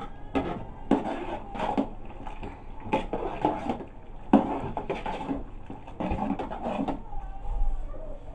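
A spoon knocking and scraping against the sides of a metal pot while thick okra and ogbono soup is stirred, in irregular strokes.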